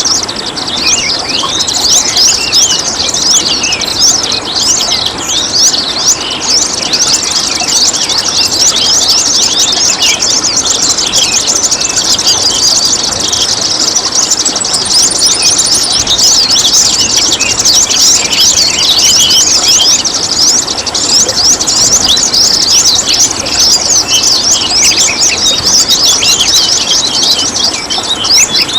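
Dense, continuous chorus of many small songbirds chirping in quick, high-pitched sweeping calls over a steady trickle of water.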